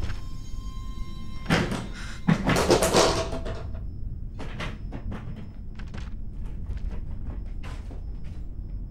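A loud cluster of bangs and thuds about a second and a half in, followed by scattered short knocks and clicks, with music under it; a brief steady tone sounds just before the bangs.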